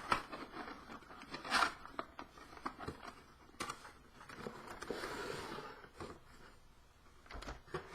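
Box contents and packaging being handled and unpacked: scattered clicks and scrapes, with a longer rustle about five seconds in.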